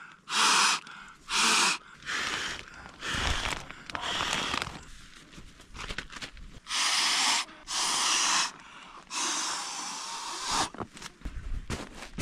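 A blow-up sleeping mattress being inflated: about nine puffs of air rushing into it, with a longer pause midway.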